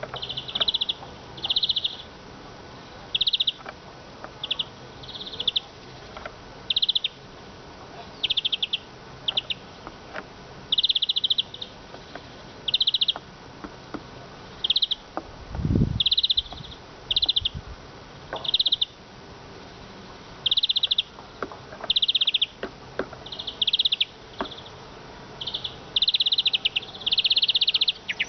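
Eurasian siskin singing: short, buzzy twittering phrases repeated about once a second. A dull low thump comes about halfway through.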